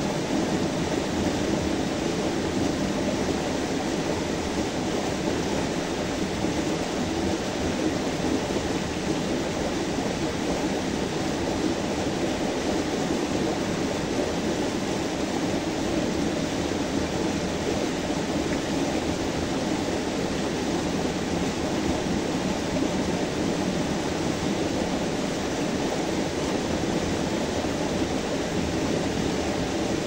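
Small forest stream cascading between boulders into a rock pool: a steady, unbroken rush of falling water.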